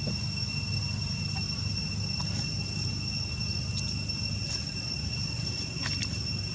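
Steady, high-pitched drone of insects over a constant low rumble, with a few faint ticks.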